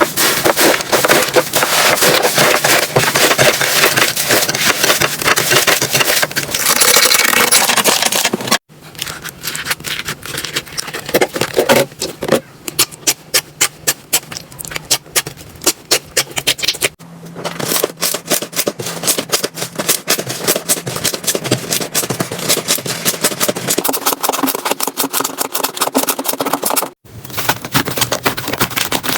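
Slime being squeezed, poked and stretched by hand, giving dense crackling and clicking pops. It comes in short clips that cut off abruptly about every eight to ten seconds.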